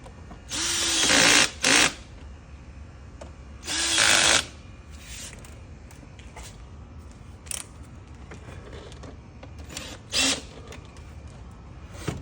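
Drill/driver spinning in short runs to drive the screws of the intake hose clamps tight: two runs of about a second each and two brief blips, each starting with a quick rise in pitch.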